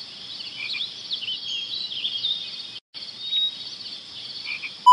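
Nature-ambience sound effect laid over an awkward silence: a steady high chirring of insects with bird chirps and short whistled glides over it. It drops out for an instant about three seconds in, and a short loud beep comes right at the end.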